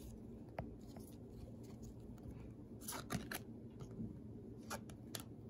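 Topps baseball cards being slid off a stack one at a time by hand: faint papery rubbing with a few short, sharp flicks, most of them in the middle and latter part.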